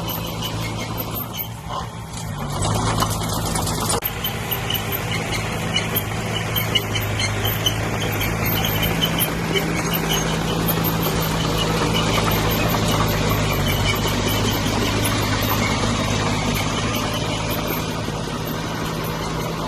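Diesel engine of a small D20P crawler bulldozer running steadily at work, getting louder about two and a half seconds in. Short high squeaks come and go over it.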